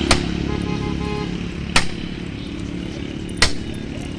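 Hammer striking metal three times, about one and a half seconds apart, the first blow leaving a short metallic ring, over a steady low hum.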